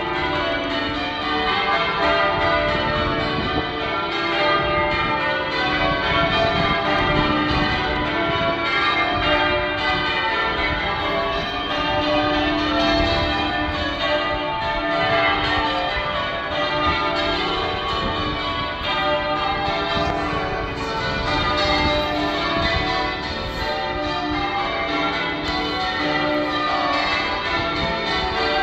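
Cathedral church bells being rung in changes, strike after strike without a break, their ringing tones overlapping.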